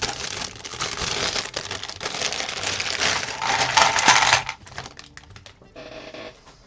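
Loose plastic LEGO pieces clattering and rattling together with the crinkle of a plastic parts bag, dense and busy for about four and a half seconds, then dying down to a few light clicks.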